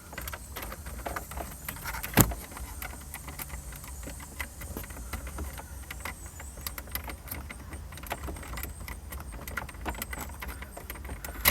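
Small plastic clicks and rattles of hands working behind a truck's dash to unplug a wiring harness connector from the 4x4 selector switch, with one sharper click about two seconds in.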